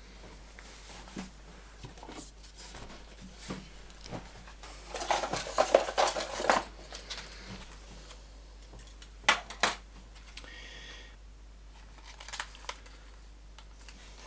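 Hands handling small parts and crinkly packaging on a workbench: scattered light clicks and taps, a burst of crinkling about five to six and a half seconds in, two sharp clicks a little after nine seconds, and a short rasp just after.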